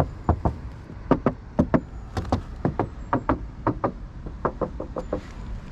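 Knocking on the panels of a 2023 BMW Z4 M40i: a quick, uneven series of sharp raps, about three a second and often in pairs, each one differing in pitch from the last.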